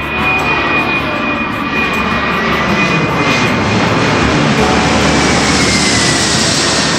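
Airliner flying low overhead on its landing approach: a loud, steady engine roar that builds a little, with a high whine that slides down in pitch as it passes, about six seconds in.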